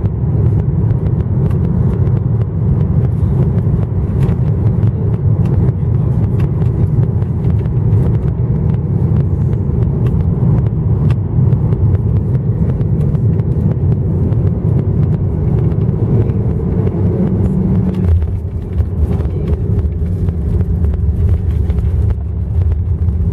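Steady low rumble of a Boeing 737-900ER's engines and airflow, heard inside the cabin on final approach. About three-quarters of the way through, the sound changes abruptly as the jet touches down and rolls out with its spoilers raised.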